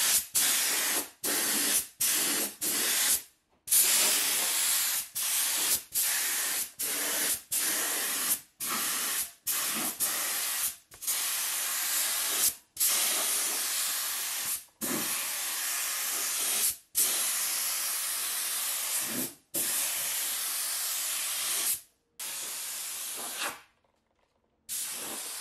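Gravity-feed compressed-air spray gun hissing in repeated trigger pulls as it sprays a first coat of carpet dye, each burst cutting off sharply: short bursts of about half a second at first, then longer passes of one to two seconds. Near the end it is quieter and stops briefly.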